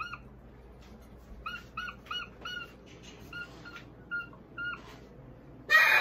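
A parrot giving a string of short, clipped calls on one pitch, about three a second, then a loud harsh burst near the end.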